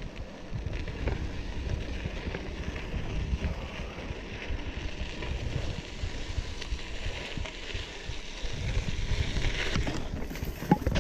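Drop-bar bike riding a dirt trail: tyres crunching over dirt and gravel with the bike rattling over bumps and wind buffeting the microphone. Near the end there is a sharp knock.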